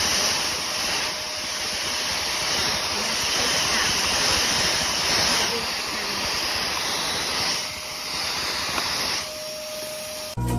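Hoover Commercial PortaPower canister vacuum running with a steady rushing noise and a faint steady tone; the noise drops away about nine seconds in.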